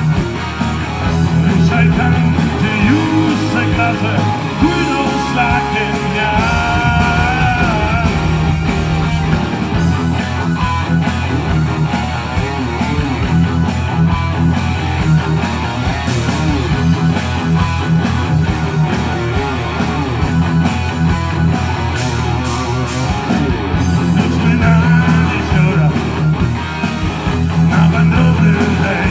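Live rock band playing: electric guitar, bass guitar, keyboard and drums, with a singer.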